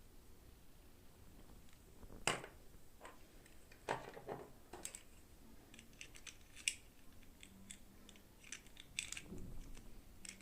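Plastic toy packaging and doll pieces being handled: scattered irregular clicks, taps and short crinkles, the sharpest about two seconds in and again near seven seconds.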